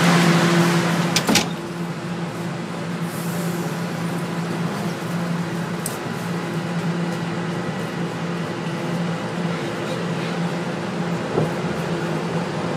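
Toronto Rocket subway car: a sharp knock about a second in, typical of the sliding doors closing, then the car's steady low hum.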